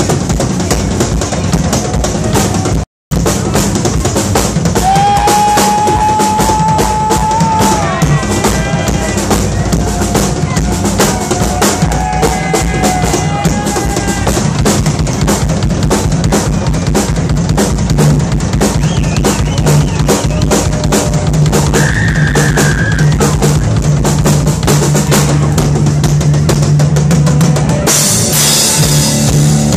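Drum kit played hard and fast, dense rapid hits across snare, toms, kick drum and cymbals. The sound cuts out for a moment about three seconds in.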